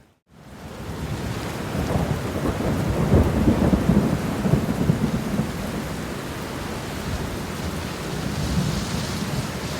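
Steady heavy rain falling, with a long rumble of thunder that swells about two seconds in and dies away by about six seconds. The sound fades back in after a brief dropout at the very start.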